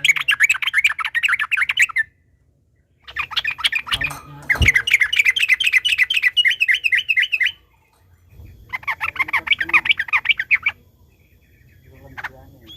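Yellow-vented bulbul (trucukan) singing its long, rapid rolling chatter: three bouts of fast repeated notes, each a couple of seconds or more, with short pauses between, then a few fainter calls near the end.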